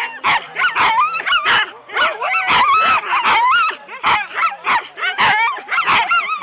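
Several harnessed Siberian huskies yelping, barking and whining over one another in quick, wavering calls, the frantic noise sled dogs make while held back at a race start.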